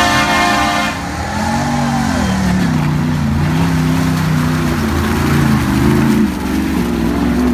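2017 Ram Power Wagon's 6.4-litre HEMI V8 revving up and down repeatedly as the truck churns through deep mud. A horn blast sounds at the start and cuts off about a second in.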